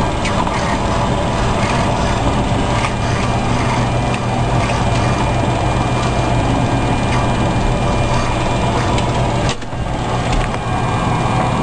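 Steady running noise of a Boeing 727-200's three turbofan engines at idle, heard inside the cockpit: a low hum with a thin steady whine above it. The level dips briefly about nine and a half seconds in.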